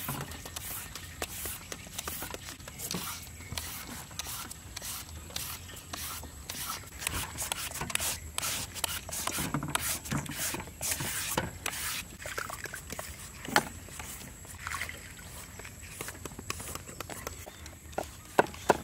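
Irregular scraping and rubbing strokes of hand food preparation, with scattered sharp clicks.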